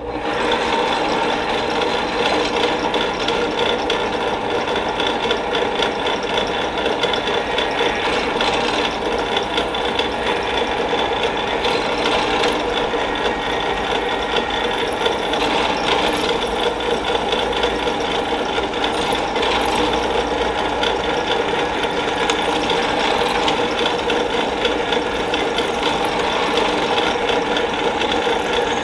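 Drill press running steadily, spinning a small metal part in its chuck down onto a stationary drill bit clamped in the vise, the bit cutting into the end of the part to centre-drill it.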